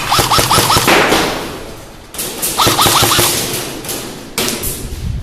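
Airsoft electric guns firing rapid full-auto bursts: three bursts, about a second each, with the sound echoing and dying away between them.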